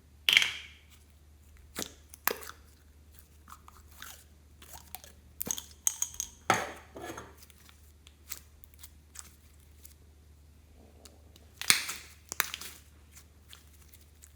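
Slime being squished and worked by hand, giving irregular sticky crackles and pops. The loudest come near the start, in the middle and near the end.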